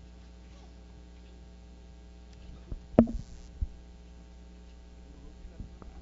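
Steady electrical hum with its overtones from the open sound system, with a few knocks and bumps from a handheld microphone being handled, the loudest about three seconds in.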